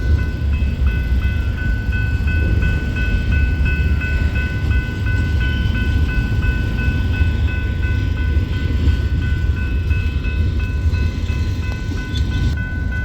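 Train rolling past: a steady heavy low rumble of the cars on the rails, with a thin, high, steady whine held over it.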